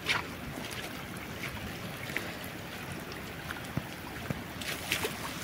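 Steady wash of rain and fast-running rainwater, with a few faint scattered taps.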